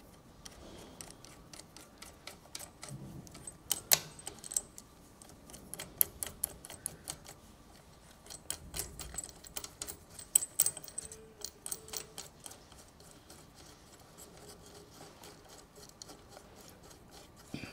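Small metal parts clicking and clinking at an irregular pace as washers and nuts are fitted to the bolts that clamp a rotary table to a drill-milling machine's worktable, with a few sharper clinks among them.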